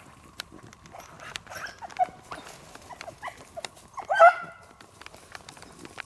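Beagles giving voice on a rabbit's track: scattered short yips, then one louder cry about four seconds in.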